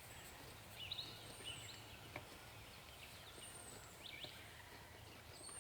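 Faint birdsong: scattered high chirps and short whistled notes from small birds, over a quiet rural background.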